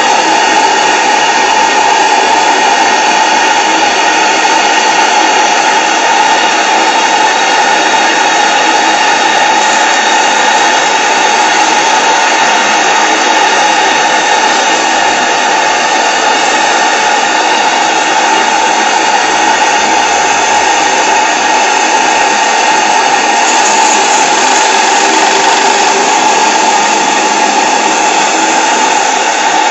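Small double-acting oscillating V-twin model steam engine (PMR V-twin) running fast on steam from a Saito BT1L boiler. Its exhaust beats merge into a loud, steady hissing buzz with a hum in it, and the hiss grows a little brighter in the last few seconds.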